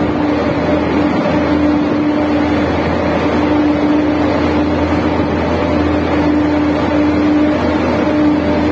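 Steady drone of construction machinery inside a tunnel: a constant mid-pitched hum over a low rumble, unchanging throughout.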